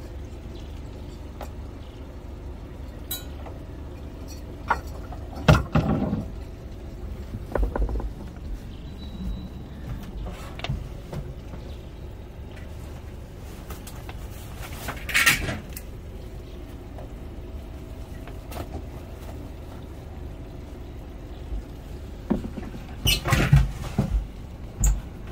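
Scattered knocks, bumps and scrapes of gear being handled as an ice chest is emptied, over a steady low rumble, with a quick run of knocks near the end.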